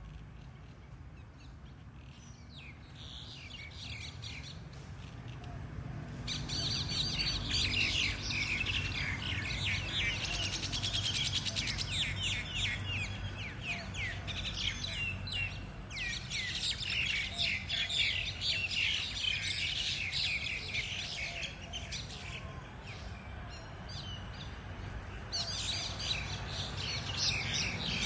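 A group of mynas squabbling, with many rapid, overlapping chattering calls. The calls are faint at first, get much louder about six seconds in, and ease off briefly twice.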